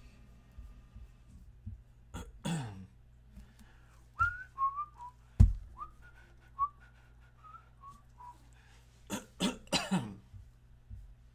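A man clears his throat twice, then whistles a short wavering tune of quick notes, then clears his throat again in three quick bursts. A single sharp thump, the loudest sound, lands early in the whistling.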